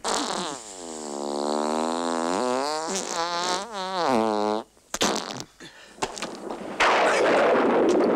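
A long, drawn-out fart, about four and a half seconds, that starts high, sweeps down in pitch and then wobbles up and down before stopping. A few short clicks follow, and near the end a loud steady rushing noise sets in.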